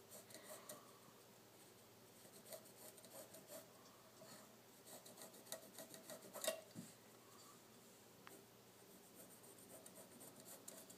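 Faint scratching of a pencil tracing on fabric around the edge of a tin bucket as it is rolled along, with one sharper click about six and a half seconds in.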